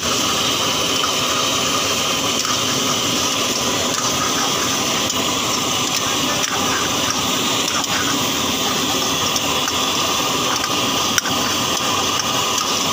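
Prawn karahi masala sizzling and bubbling hard in a steel wok over a high gas flame, a steady loud hiss with the burner running underneath. A few light knocks of the ladle against the wok.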